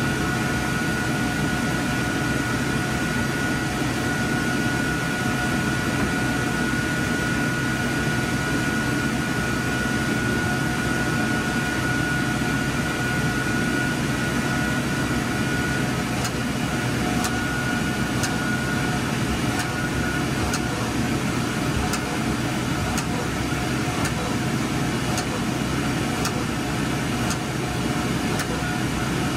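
Steady whir and hum of IMAX 70mm projection-booth machinery and ventilation fans. A thin high whine fades out about two-thirds of the way through, and faint scattered clicks come in the second half.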